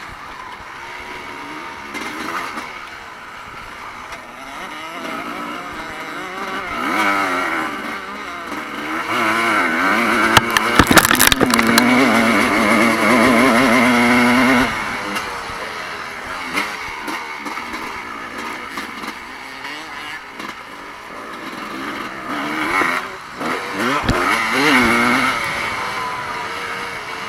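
Motocross bike engines revving hard and dropping back as they are ridden round the track, the pitch rising and falling repeatedly. The engine noise is loudest about ten to fifteen seconds in, with a few sharp knocks in the middle of that stretch, and swells again near the end.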